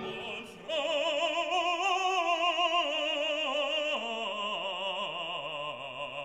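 Slow classical background music: long held notes with wide vibrato enter after a short pause, and the melody steps down about four seconds in.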